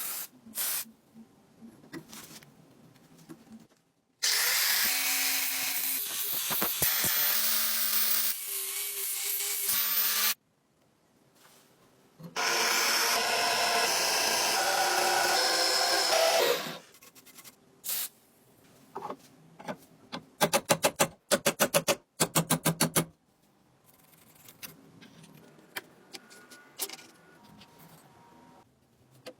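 A power tool runs in two loud stretches of several seconds each, a few seconds apart. Short knocks and clicks fall between them, with a quick run of about a dozen sharp clicks near the end.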